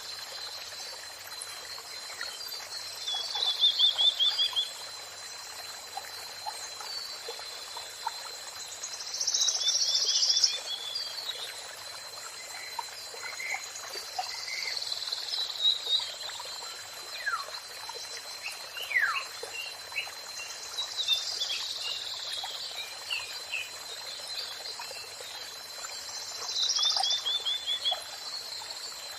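A songbird singing short phrases about every five to six seconds, each ending in a fast trill, with quick whistled notes between them. Under the song runs a steady wash of running water and a thin high tone.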